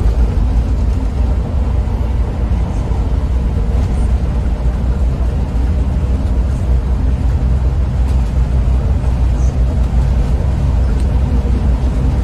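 Scania coach driving along a toll road: a steady low rumble of engine and road noise, heard from inside the bus.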